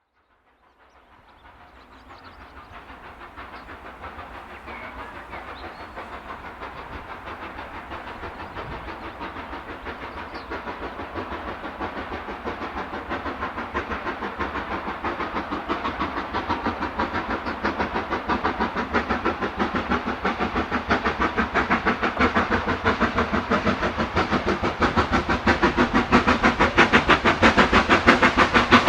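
LMS Black 5 4-6-0 steam locomotive approaching under power, its rapid, even exhaust beats growing steadily louder from faint to loud.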